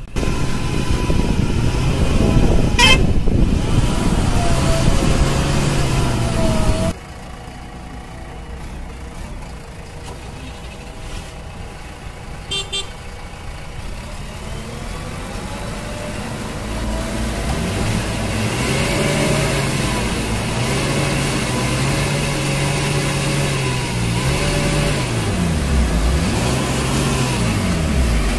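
Diesel engine of a JCB 3DX backhoe loader running under load, revving up and down repeatedly as the machine works and drives. A horn toots briefly about three seconds in. The sound drops suddenly about seven seconds in.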